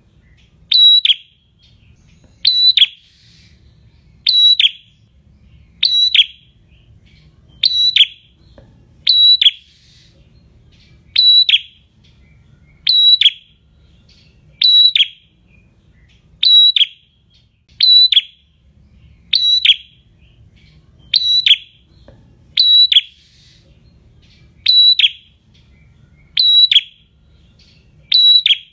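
A caged red-headed prenjak, a tailorbird, calling in its gacor song. It gives one loud, sharp, high call over and over at an even pace, about one every second and a half to two seconds.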